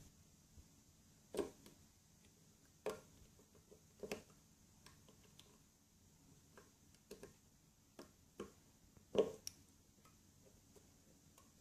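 Irregular light clicks and knocks of small lock parts and tools being handled during a BMW door lock cylinder repair, about a dozen spread unevenly, the loudest four sharper knocks.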